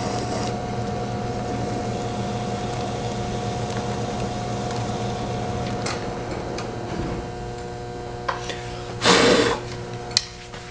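Trimming tool scraping a clay teapot lid on a spinning pottery wheel: a steady rasping rub over the wheel's constant hum. The scraping fades about seven seconds in, then a brief loud rub about nine seconds in and a sharp click.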